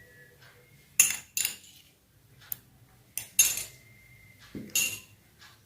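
A spoon clinking and tapping against a bowl a handful of times, in separate sharp knocks a second or so apart, as ginger-garlic paste is added to the fish masala.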